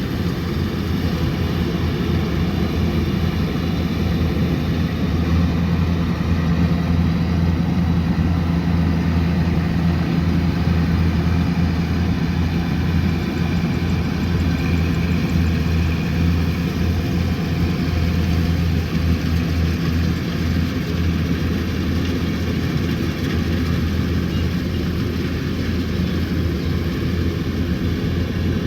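Kubota combine harvester's diesel engine and threshing machinery running with a steady low drone.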